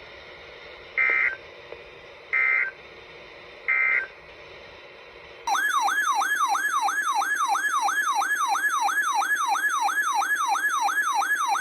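Three short bursts of EAS digital data tones, the end-of-message code that closes a NOAA Weather Radio alert. A couple of seconds later a loud warbling siren-like alert tone starts, sweeping up and down about three times a second.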